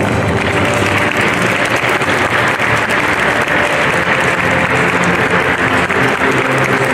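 Audience applauding steadily, with music playing faintly underneath.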